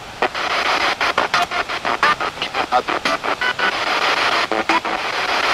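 Radio-sweep ghost box (spirit box) scanning through stations: rapid choppy bursts of static with brief broken fragments of voice.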